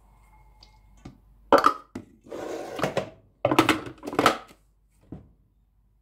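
Hard plastic knocks and clatter, with a short scraping rub between them, as a food processor's clear plastic bowl is handled and set back onto its motor base.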